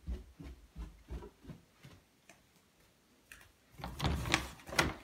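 Soft footsteps on carpet, about three a second, then a doorknob turned and the door opened near the end, with two sharp latch clicks.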